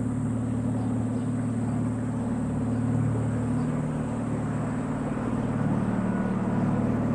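An engine running steadily, a low even hum that does not change.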